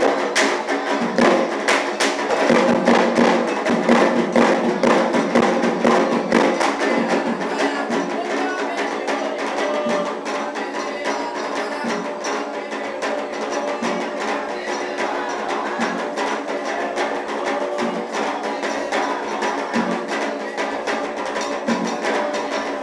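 Afro-Brazilian ritual percussion music: fast, dense drumming and struck percussion in an even rhythm, with steady held tones underneath, a little louder in the first few seconds.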